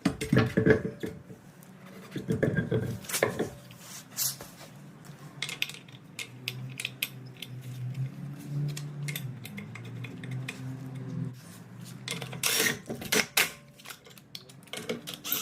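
Metal clanks and knocks as a car wheel is lifted and set onto the hub over a Brembo brake caliper, with a low steady hum through the middle.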